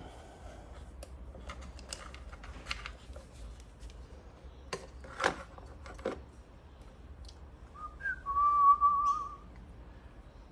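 A person whistling a short, wavering note about eight seconds in, the loudest sound here, amid scattered light clicks and knocks of hands handling parts.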